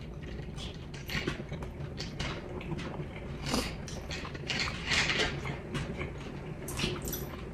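People eating noodles with forks: chewing, with a string of short, irregular clicks of forks against plates and mouth sounds.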